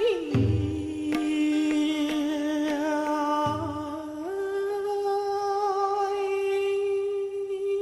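Background music: a long, steady hummed or droning melody note that steps up in pitch about four seconds in, with two short low bass notes under it.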